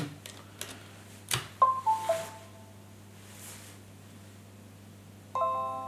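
A click as a USB flash drive goes into the GPD Pocket's port. About a second and a half in, Windows 10 plays a short chime of three falling notes from the Pocket's speaker. Near the end comes a fuller, ringing notification chime: the drive has been recognised.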